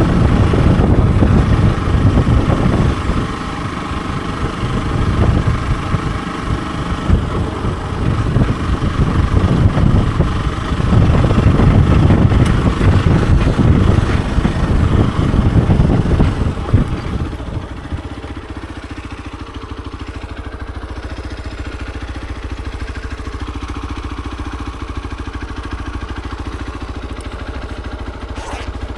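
Hero XPulse 200 4V's single-cylinder four-stroke engine running under way with the throttle rising and falling, then about 17 seconds in it drops to a lower, steady run that sounds like idling.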